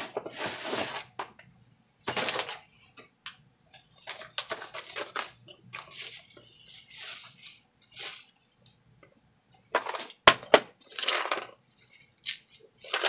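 Bubble wrap crinkling and rustling in irregular bursts as plastic storage cases are pulled out of their box and unwrapped, with small metal presser feet rattling loose inside the cases. A single sharp click about ten seconds in.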